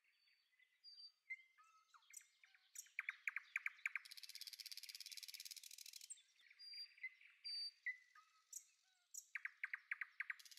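Faint birds chirping and calling: short whistled notes, and a rapid trill twice, about three seconds in and again near the end. A soft hiss runs for about two seconds in the middle.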